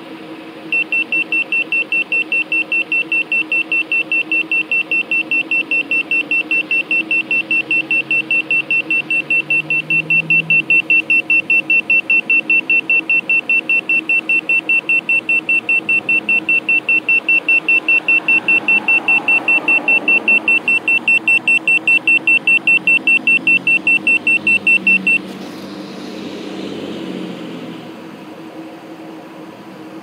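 Handheld carbon monoxide meter sounding its alarm, a high beep repeating about four times a second, as it samples car exhaust and reads well above its alarm level (78 ppm CO). The beeping cuts off about 25 seconds in. Under it is the steady hum of the car engine idling.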